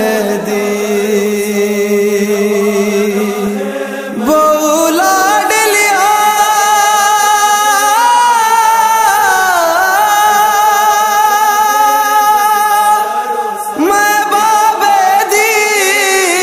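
Noha: a male voice singing a Shia mourning lament in long held notes that waver, louder from about four seconds in.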